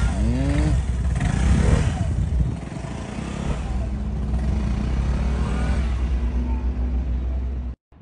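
Vespa scooter's single-cylinder engine running as it pulls away and rides off, a steady low drone; it cuts off suddenly near the end.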